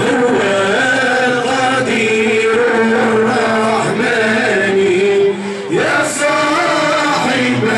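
Group of men chanting together in a traditional Arabic folk style, holding long notes that step and glide in pitch.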